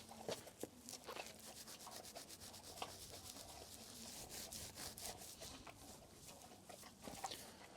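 Faint, quick rubbing or scratching strokes, many a second, running on steadily.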